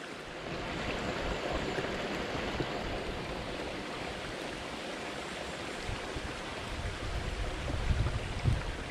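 Steady rushing of a woodland stream, with a few low thumps near the end.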